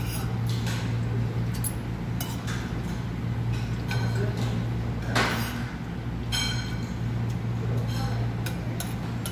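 Metal spoon and fork clinking and scraping against a ceramic plate as rice is scooped up, in irregular clinks, one with a brief ring just after six seconds. A steady low hum runs underneath.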